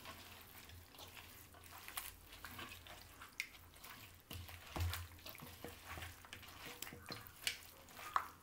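A hand squelching chicken pieces through thick yogurt marinade with herbs and fried onions in a stainless steel bowl. There are irregular wet squishes and light clicks against the bowl.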